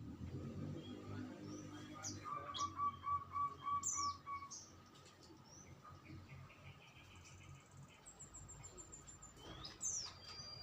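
Songbirds chirping and calling: a quick run of about six even notes a couple of seconds in, scattered high chirps and a trill, and one long falling whistle near the end.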